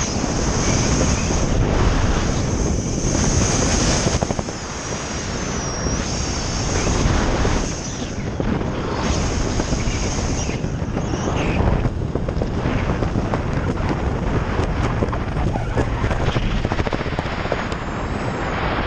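Wind buffeting the microphone of a skydiver's body-worn camera during a parachute descent: a loud, steady rush with a high hiss.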